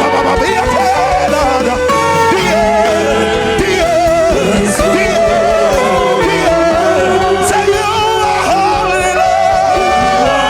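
Gospel worship song: a voice singing drawn-out, wavering lines with vibrato, without clear words, over steady instrumental accompaniment.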